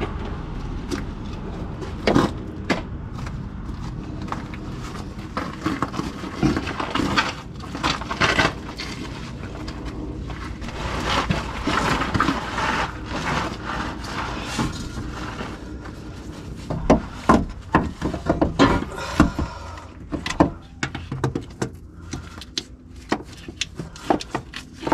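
Hand tools and metal parts clicking, knocking and rattling as a truck starter is bolted and wired back in, the knocks coming thickest in the second half.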